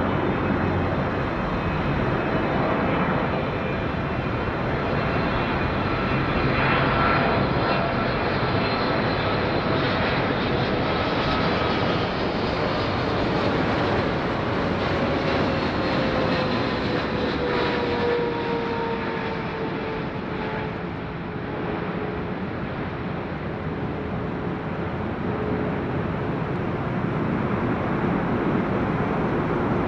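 Swiss Boeing 777-300ER on final approach, its two GE90 turbofan engines running: a steady jet rumble with whining tones that slowly fall in pitch partway through as the airliner passes and descends toward the runway.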